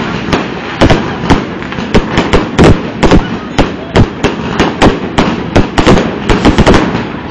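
Fireworks exploding at close range: a rapid, irregular string of sharp bangs, several a second, with a quick cluster of bangs about two-thirds of the way through.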